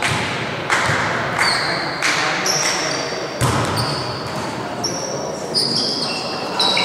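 A volleyball thudding sharply against hands and the hardwood court, about half a dozen times, each impact echoing through a large sports hall. Sneakers squeak on the court floor in between.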